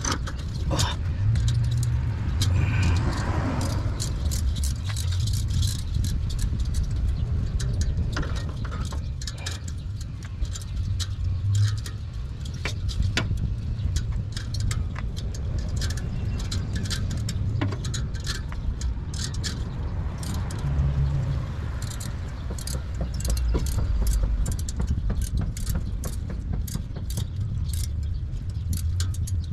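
Metal parts and tools clinking and rattling in many small, quick clicks during exhaust pipe repair work, over a steady low rumble.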